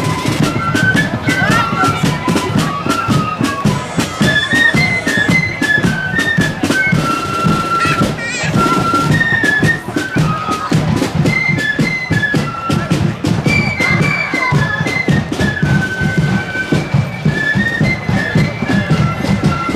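Marching flute band playing a march tune, the flutes carrying a high melody over fast, rattling side-drum strokes and a heavy bass-drum beat.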